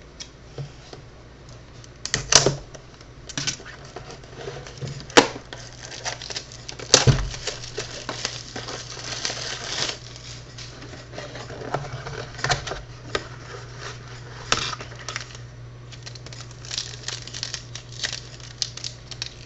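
A sealed box of hockey cards and its packs being opened by hand: scattered sharp clicks and snaps, with stretches of crinkling and tearing wrapper. A faint steady low hum runs underneath.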